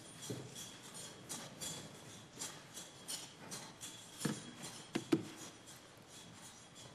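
Faint irregular rustling and clicking, with a few soft thumps a little past four and five seconds in.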